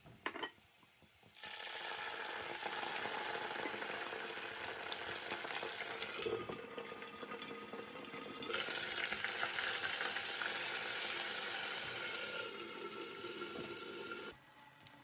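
A short tap of a wooden spatula on the pot, then a steady sizzling and bubbling of liquid in hot oil with fried onions in a covered cooking pot, getting brighter about halfway and cutting off suddenly near the end.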